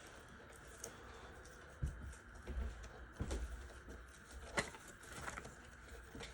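Faint scattered clicks and light knocks, as of small objects being handled on a table, with a few low thuds near the middle.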